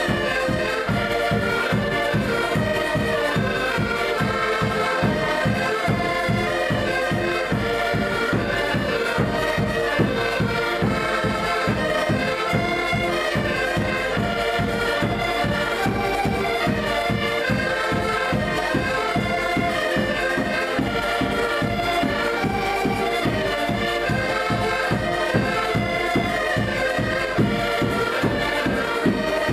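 An ensemble of diatonic button accordions playing a traditional Portuguese folk tune together in chords, over a drum beating a steady rhythm.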